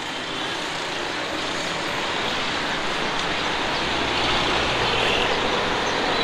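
Road traffic noise: a steady hiss of passing vehicles that slowly swells, with a low engine rumble joining about four seconds in.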